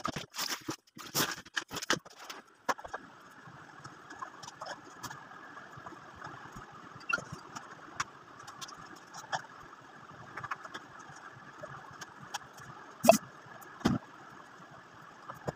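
Mopping a tiled floor: a quick run of knocks and clicks in the first couple of seconds, then scattered light taps and two louder knocks near the end, over a steady low hum.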